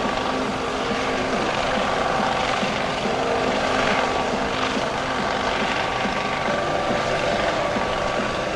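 US Coast Guard MH-65D Dolphin helicopter in flight: steady rotor and twin-turbine noise with a constant whine, as it moves into forward flight.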